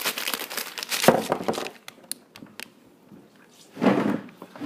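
A person spitting out a mouthful of swished milk with wet spluttering and splashing that sounds like throwing up, followed by a few small drips and clicks, and another short splutter near the end.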